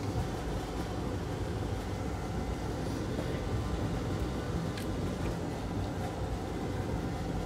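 Steady whirring hum of a workbench fan or blower, with a few faint ticks over it.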